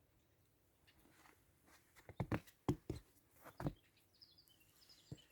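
Faint footsteps in deep snow, about six muffled steps in the middle, followed by a few short, high bird chirps.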